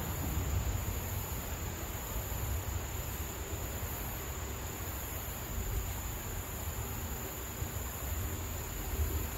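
Wind rumbling on the microphone over a steady, high-pitched insect drone, with no distinct events.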